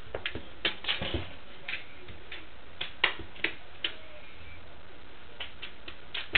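A cat's paws and claws tapping and skittering on a hardwood floor as it bats and pounces: irregular sharp taps, about a dozen, with a lull a little past the middle.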